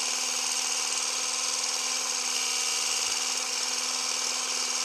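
Electric immersion blender's motor running at a constant speed, a steady whine, as its milk frother attachment whisks fat-free milk in a glass.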